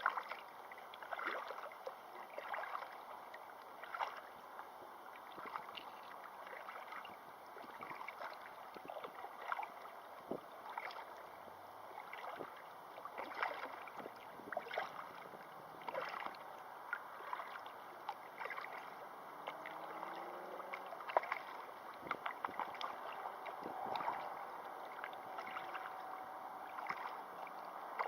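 River water splashing and lapping: small irregular splashes, about one a second, over a steady rush of moving water.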